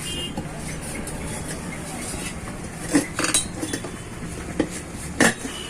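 A few sharp metallic clinks and knocks, about three seconds in and again near the end, as an auto-rickshaw tyre is worked onto its steel rim, over a steady background hum.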